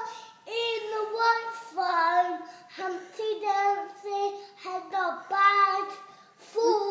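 A young boy singing loudly in a high voice, a string of short held notes with brief breaks between them.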